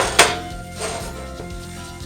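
Background music with a steady beat, over which a sharp knock sounds about a fifth of a second in, followed by a softer, scraping noise just under a second in.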